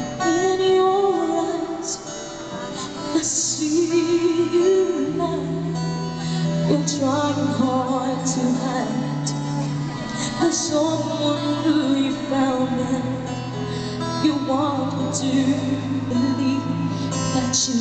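Live concert music: a woman singing with a live band, held bass notes underneath.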